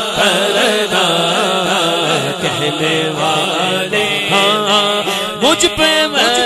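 Man singing an Urdu naat into a microphone, drawing out a long, wavering melismatic phrase with no break.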